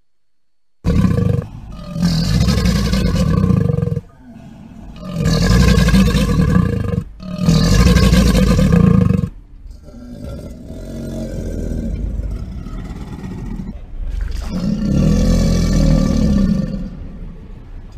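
Crocodile calling: a series of deep, low-pitched calls, each lasting one to four seconds with short breaks between, starting suddenly about a second in.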